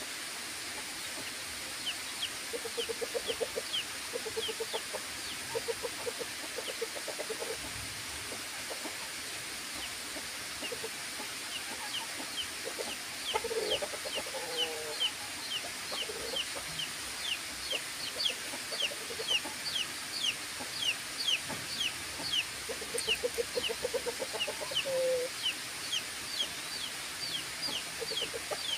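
Chickens clucking in short, rapid runs of low clucks every few seconds, while high, thin, falling peeps repeat over and over, thickest in the second half. A steady high hiss lies under it all.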